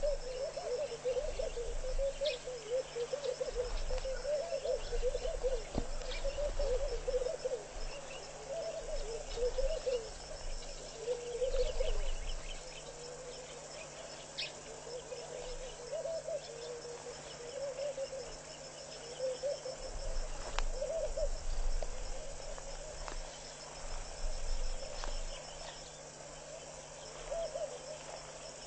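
Pied kingfisher's feathers rustling as it preens perched on the microphone, heard as occasional short rustles and taps. Behind it runs a continuous chorus of low, warbling bird calls and a high, steady insect trill.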